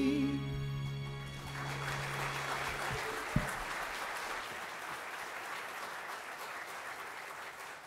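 Congregation applauding at the end of a song while the last held note of the accompaniment dies away; the clapping builds about a second and a half in and then slowly fades. A single low thump about three and a half seconds in.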